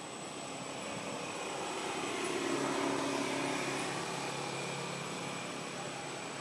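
A distant engine drones steadily, growing louder toward the middle and easing off again, like a motor passing at a distance.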